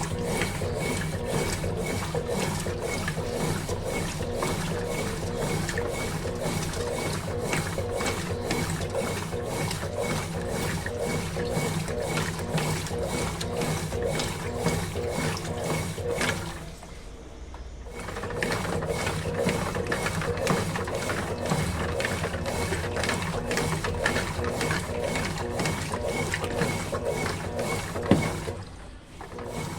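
Consul Facilite 11 kg top-loading washing machine washing a load, its agitator churning the clothes and water in a steady, even rhythm of strokes. The churning stops briefly about halfway through and again near the end.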